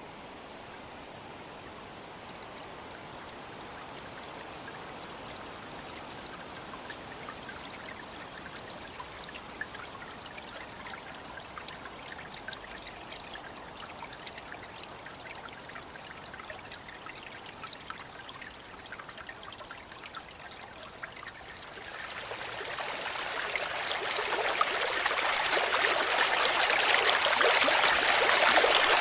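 Small woodland stream trickling and splashing over rocks in a little cascade, with fine droplet ticks. About three quarters of the way through the rushing jumps up and then grows steadily louder.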